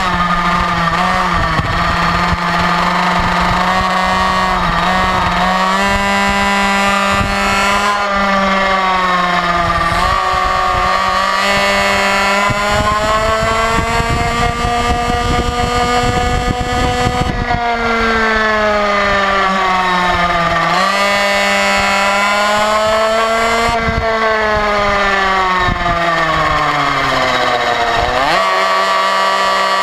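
Motorcycle engine heard from an on-board camera, running hard with its note climbing and falling as the bike speeds up and slows through the corners, dipping steeply and recovering near the end. Wind rumbles on the microphone underneath.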